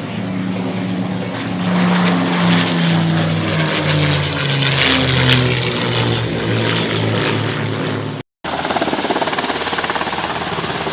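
Propeller-driven aircraft flying past, its engine note dropping steadily in pitch as it goes by. After an abrupt cut near the end comes the pulsing chop of a helicopter.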